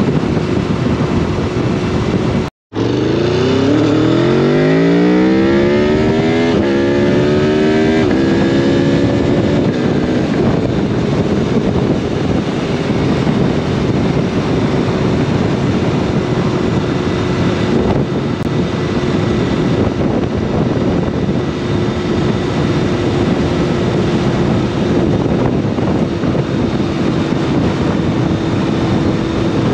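2021 Aprilia Tuono V4 engine through an SC Project carbon slip-on exhaust: after a brief cut to silence, the revs climb hard with two quick upshifts, then the engine holds a steady pitch at cruising speed over constant wind rush.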